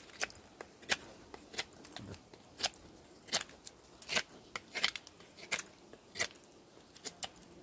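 SOG Tech Bowie knife blade carving into a hardwood stick to shape a tent stake: about ten crisp cutting strokes at a steady pace.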